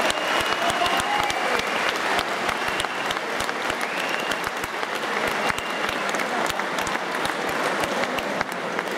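Audience applauding steadily, a dense patter of hand claps, with a few voices calling out over it.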